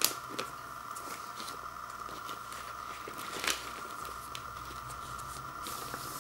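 A vinyl LP in a paper inner sleeve being handled, with light paper rustling and scattered ticks. A sharp click comes right at the start and another about three and a half seconds in, over a steady faint background hiss.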